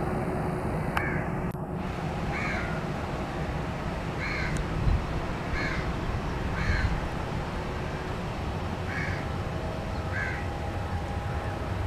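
A crow cawing repeatedly, a short call every second or so, over a steady low rumble from the Boeing 737-800's jet engines running at low power.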